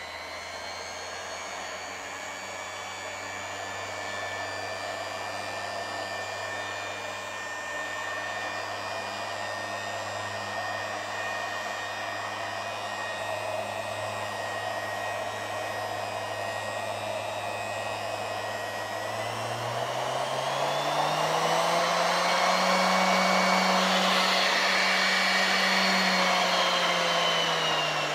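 Random orbital sander with a buffing pad running steadily while buffing wax on a wooden tabletop. About two-thirds of the way through, its motor speeds up to a higher, louder whine, holds there, then slows back down near the end.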